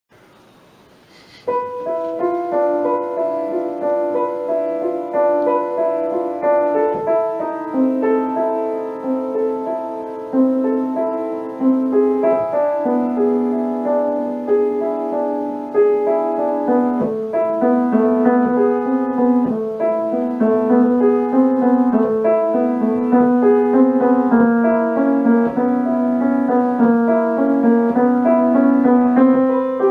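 Cello and piano playing classical music together. The music begins about a second and a half in after a near-quiet start.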